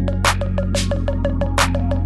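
Background electronic music with a steady beat: a deep held bass, quick hi-hat ticks and two snare hits.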